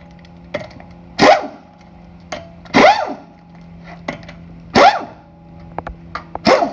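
Half-inch pneumatic impact wrench firing four short bursts, one every one and a half to two seconds, each rising and falling in pitch as it spins up and stops, backing lug nuts off one after another. A faint steady hum lies underneath.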